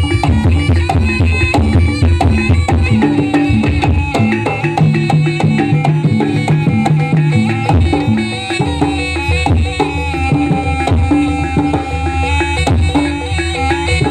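Live Javanese traditional dance music: a gamelan-style ensemble with hand drums playing a busy, driving rhythm over held pitched tones.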